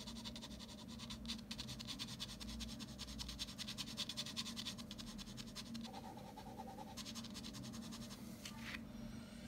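Ballpoint pen scratching on paper in many quick, short hatching strokes, faint.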